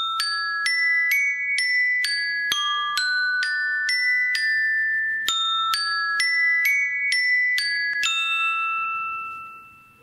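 An iPhone ringtone: a melody of clear chiming notes struck about twice a second. The last note rings on and fades away over the final two seconds.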